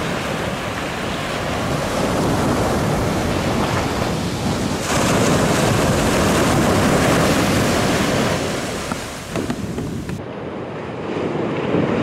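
Shorebreak waves crashing and surf rushing, a dense steady wash of water noise with wind buffeting the microphone. The loudest stretch runs from about five seconds in to about eight, and the sound changes abruptly twice as shots cut.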